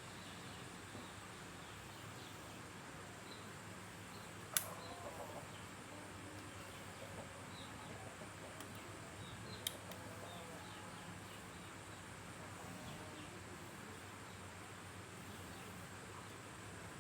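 Quiet background hiss with scattered faint high chirps. A sharp click about four and a half seconds in rings on briefly, and a smaller click follows near ten seconds.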